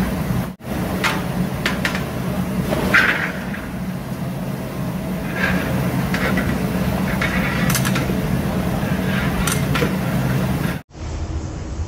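Food frying in ghee in a large steel karahi, with a long metal ladle scraping and clinking against the pan over a steady low hum. The sound drops out briefly about half a second in and again near the end.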